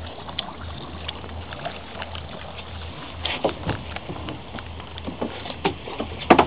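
Small fishing boat's engine idling with a steady low hum. From about halfway, irregular knocks and clatter against the boat come in, the loudest near the end, as a large fish is gaffed and hauled aboard.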